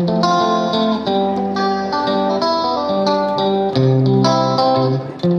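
Background music: a plucked guitar melody with sustained bass notes.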